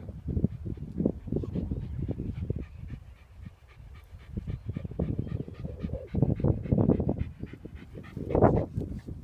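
A dog panting in quick, uneven breaths, with wind buffeting the microphone.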